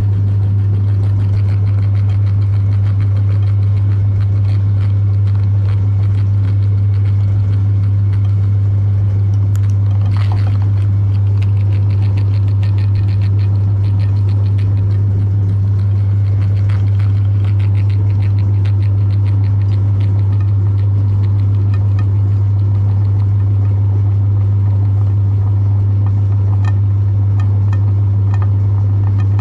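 An electric meat grinder's motor running steadily, with a loud, unchanging low hum.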